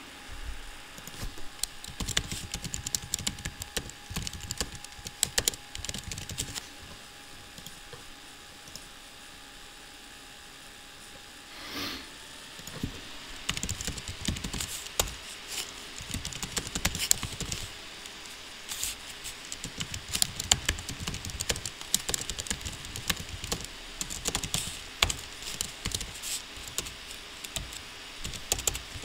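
Typing on a computer keyboard: quick runs of clicking keystrokes, with a lull of a few seconds near the middle before denser typing resumes.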